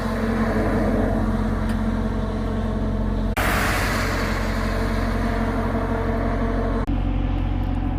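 Truck engine and road noise heard from inside the cab while driving: a steady hum at constant pitch with tyre rumble. The sound changes abruptly twice, about three and a half and seven seconds in.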